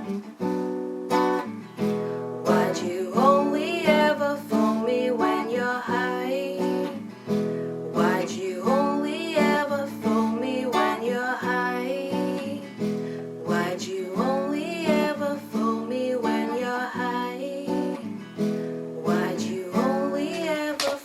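Acoustic guitar strummed in steady chords, with a wordless, wavering voice-like melody rising over it several times.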